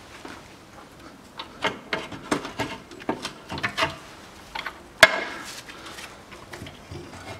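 The spare-wheel winch of a Land Rover Discovery 3 being worked free of its mounting by hand. A run of light metal clicks and knocks is followed, about five seconds in, by one sharp clunk, the loudest sound.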